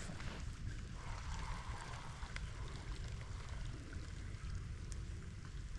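Light rain pattering, with scattered faint drop ticks over a low steady rumble.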